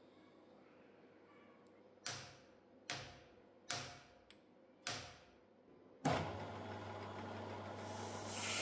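Four taps of a soft-faced hammer on a steel workpiece, seating it down onto the parallels in a milling vise, each tap ringing briefly. About six seconds in, the milling machine spindle starts and runs with a steady hum.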